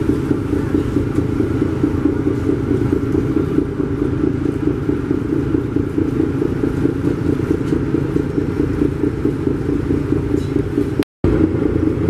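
The MV Surovi-9 river launch's two six-cylinder Daihatsu marine diesel engines running under way, a loud, steady, rhythmic diesel drone. It drops out for a split second near the end.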